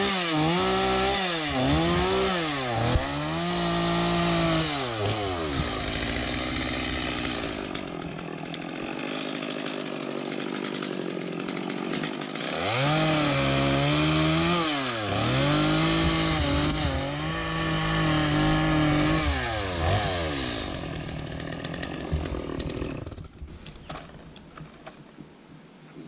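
Chainsaw cutting tree branches: the engine revs up and down repeatedly, settles into a steadier note through the cut, revs again in the middle, then drops back near the end.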